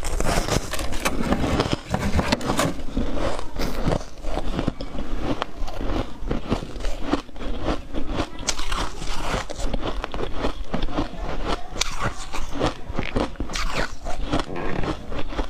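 A person biting off and chewing a big chunk of refrozen freezer frost ice: dense, irregular crunching and crackling that keeps going without a break.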